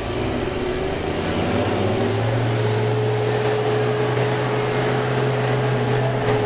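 School-bus engines running hard in a demolition derby, a mass of engine noise with a steady low note that settles in about two seconds in.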